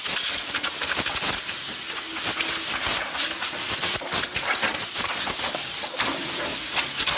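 Loud, continuous hiss of a pressurised cleaning jet blasting old grime off a workshop part, wavering in strength.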